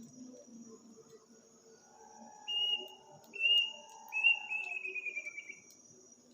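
Night bird calling: two short whistled notes, then a longer whistle that falls in pitch and breaks into a fast quaver. Crickets chirp steadily behind it.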